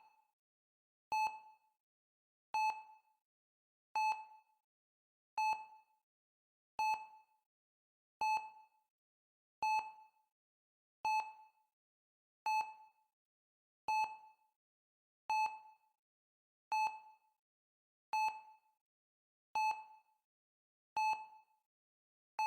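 Heart-rate monitor beeping at a steady, slow pace, about one short single-pitched beep every 1.4 seconds, each with a brief fading tail.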